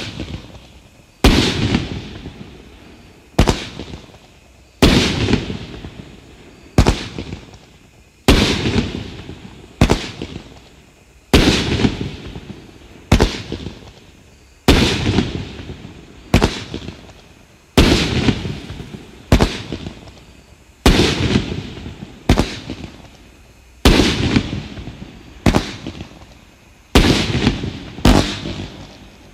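Black Cat 'Fat Cat' fireworks cake firing its shots in a steady sequence, about one loud bang every second and a half, each trailing off in a fading tail as the stars burst in the air.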